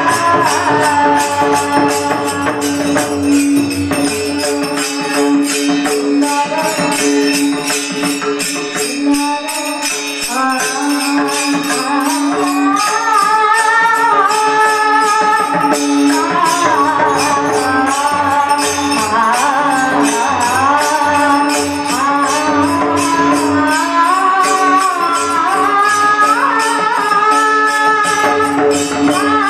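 Marathi devotional kirtan music: a singing voice with gliding, ornamented phrases over a steady held drone, with small hand cymbals (tal) clinking in a steady rhythm.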